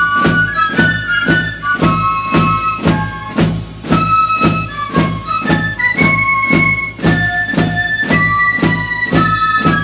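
Background music: a steady beat under a melody of held notes.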